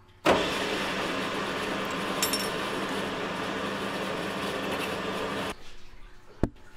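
Turret milling machine running: a loud, steady mechanical noise that starts abruptly about a quarter of a second in and cuts off suddenly about five and a half seconds in. A single sharp click follows near the end.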